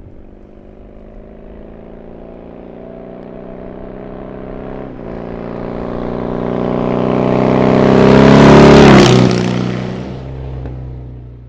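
BMW R nineT's boxer-twin engine as the motorcycle rides toward and past: it grows steadily louder for about eight seconds, passes close about nine seconds in with its pitch dropping, then fades away.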